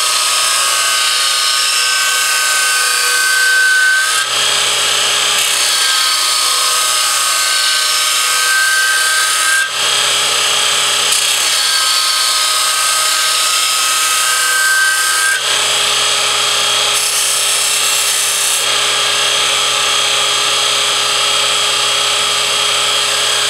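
Burr King X400 belt grinder, 1 hp, running its abrasive belt against the edge of a steel mulching lawn mower blade: a steady loud grinding hiss with a high whine, heard as several spliced passes. About 15 seconds in the whine drops away and the machine sounds steadier and lower.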